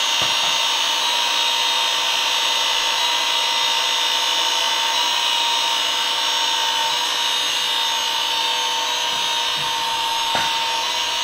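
Toy Husqvarna 125B children's leaf blower, its small electric fan motor running steadily: an even high whir with a thin steady whine.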